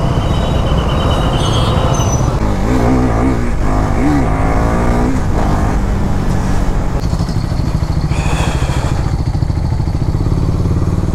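Motorcycle engine running steadily under way, with road and wind noise. A wavering pitched sound rises over it for a couple of seconds in the middle.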